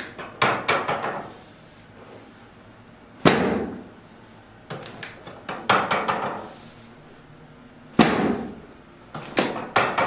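Drop section of a chiropractic adjusting table snapping down under the chiropractor's thrusts: a series of sharp knocks with short rattles, in groups every two to three seconds, the loudest about three and eight seconds in.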